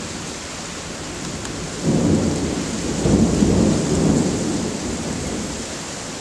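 Thunder rumbling over steady rain: the rumble swells about two seconds in, peaks around three to four seconds and dies away.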